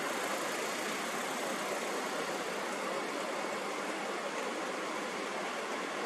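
Steady, even hiss of noise spread across the middle and high pitches, with no low rumble and no rhythm or breathing pattern.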